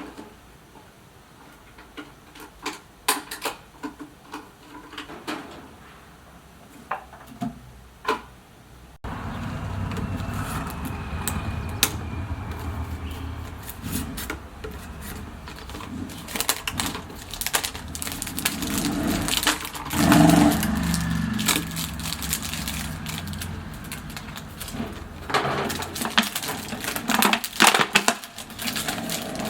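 Hand-working noises: scattered sharp clicks, taps and crackles of objects being handled. About nine seconds in, the background turns abruptly louder and fuller, with a low rumble, and the clicks and knocks come more densely.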